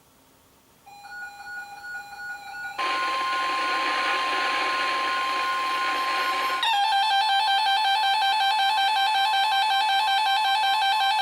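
Several weather alert radios going off together for a severe thunderstorm warning. First a few scattered beeps, then the NOAA Weather Radio 1050 Hz warning alarm tone over radio static. From about six and a half seconds in, the radios' own electronic alarms pulse together in a rapid beeping.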